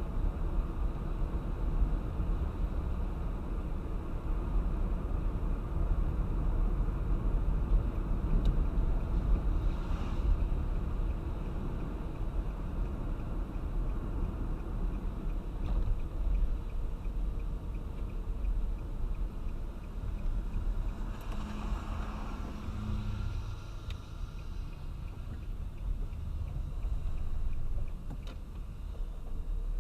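Car driving on a wet road in heavy rain: a steady low rumble of tyre and road noise mixed with rain on the car, with a brief low hum about two-thirds of the way through.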